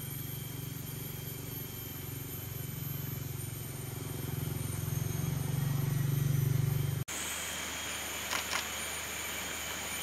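Rainforest ambience by a stream: a steady low rumble that grows a little louder, then cuts off sharply about seven seconds in. A steadier hiss with a high, even drone and a couple of faint clicks follows.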